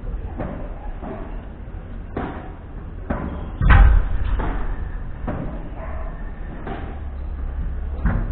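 Padel rally: the ball is struck back and forth with paddles in a string of sharp knocks about a second apart. A louder, deeper thud comes a little past the middle.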